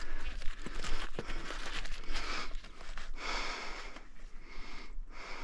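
A hiker breathing hard close to the microphone while scrambling, a noisy breath surging about once a second, with a couple of sharp clicks in the first second or so.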